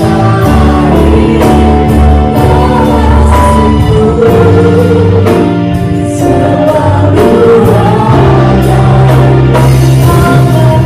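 Live worship band: several voices singing together over a Roland keyboard, bass guitar and drum kit keeping a steady beat.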